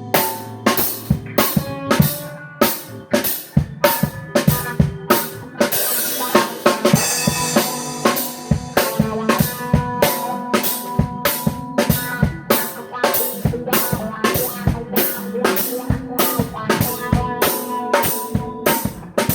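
A band playing during a sound check: a drum kit keeps a steady beat of kick and snare hits over sustained pitched instrument parts, with a cymbal wash about six seconds in.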